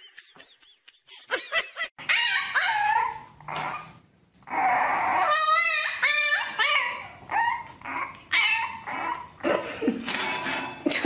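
A dog yipping and whining: a string of short, high calls that bend up and down, starting about two seconds in, with one drawn-out wavering call about halfway through.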